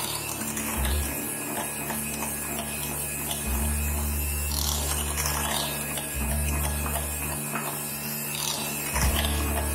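Electric hand mixer running steadily, its twin beaters whisking cream in a stainless steel bowl.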